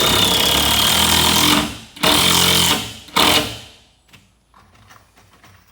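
Power screwdriver driving screws through the wooden floor sheet into the stringers: one long run of about two seconds, a shorter one, then a brief final burst as a screw seats.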